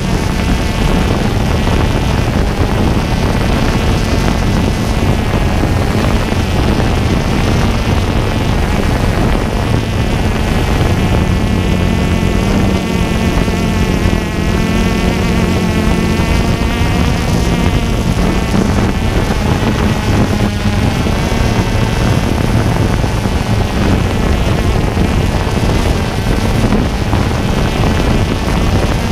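DJI Phantom quadcopter's motors and propellers buzzing steadily, the pitch wavering up and down as the throttle changes, with wind noise on the on-board microphone.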